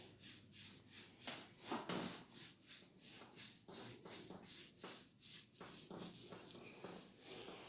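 Hands rubbing over a man's hair and temples in a head massage: quick, regular rubbing strokes, about three a second, turning softer and more even near the end.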